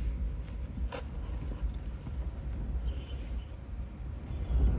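Storm wind gusting and rumbling on the microphone, swelling near the end, with a sharp click at the start and another about a second in.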